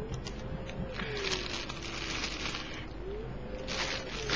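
Plastic packaging crinkling in bursts as it is handled, with a faint tone in the background that slowly rises and falls in pitch.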